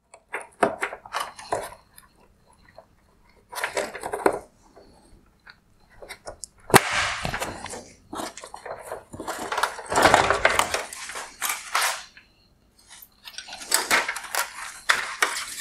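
Hard plastic clicks and rattling as the chrome bezel of a Mercedes-Benz E-Class LED headlight is unclipped and pulled from the housing, with one sharp snap about seven seconds in and bursts of scraping and clattering as the bezel comes free.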